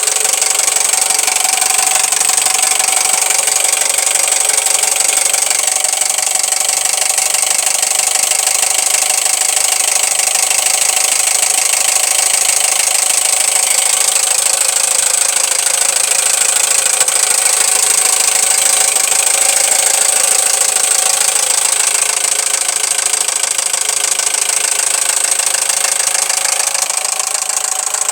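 Toyota 1AZ-FSE four-cylinder engine running steadily with a rapid, even metallic knocking, which the owner takes for piston slap.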